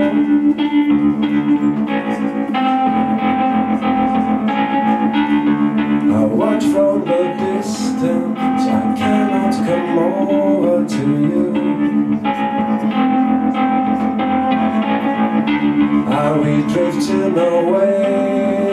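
Guitar music, plucked, over a steady held low tone, with a melody line that bends in pitch.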